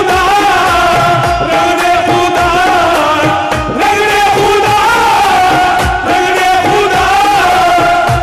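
Live qawwali music: a harmonium and keyboard melody sustained over regular drum beats, with singing.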